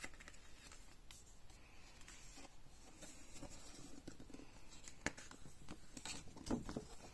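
Faint rustling of paper as a colouring book is opened and its pages are turned by hand, with soft brushes and a sharper page flick about five seconds in.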